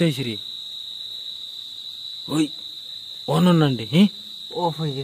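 Night insects, likely crickets, trilling as one steady high tone throughout. Short snatches of people's voices cut in over it a few times, loudest about three and a half seconds in.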